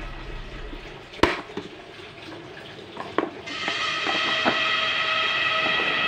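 Background music of steady sustained tones that grows louder and brighter about halfway through, with a couple of sharp knocks, one about a second in and one near the middle.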